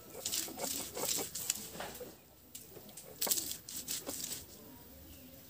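Stone roller crushing coconut, shallots and spices on a wet grinding stone (arakallu), with gritty crunching and scraping in irregular bursts and a short pause about two seconds in.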